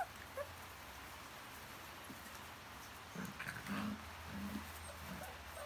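Young livestock guardian puppies (Anatolian Shepherd–Kangal–Boerboel cross, about five and a half weeks old) vocalizing during rough play: two short high yips at the start, a run of short low growls around the middle, and a falling whine at the end.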